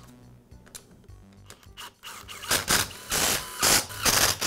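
Makita cordless impact driver driving the screws that fasten the recoil starter housing to a trimmer engine, in several short bursts starting about two seconds in, the later ones loudest.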